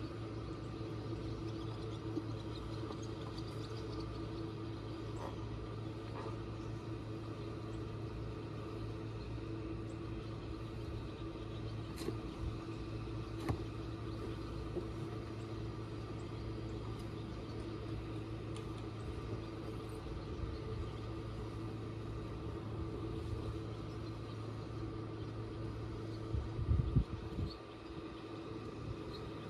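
Small boat's engine running steadily at low speed, an even hum, with a brief louder low rumble near the end.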